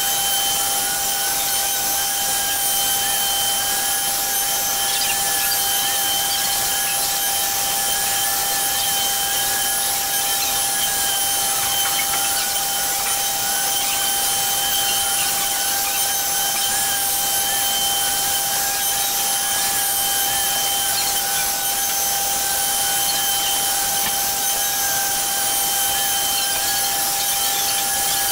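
Router spindle of a CNC Shark machine running at full speed while its bit mills out an oval pocket in a wooden panel: a steady high-pitched whine with a slightly wavering higher tone over the hiss of the cut.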